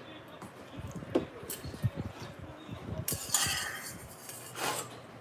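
Metal chopsticks and spoon clinking and knocking against a noodle bowl while eating cold naengmyeon, with short slurping sounds about three seconds in and again near the end.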